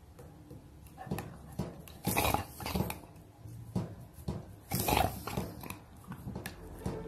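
Pit bull puppy making short, rough noises in irregular bursts, loudest about two and five seconds in, as it licks and mouths fingers through the wire bars of its crate.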